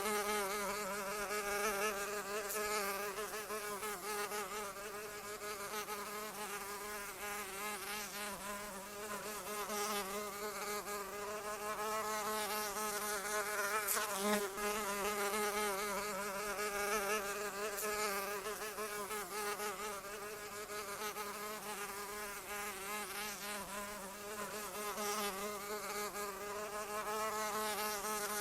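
A fly buzzing continuously, with a slightly wavering pitch.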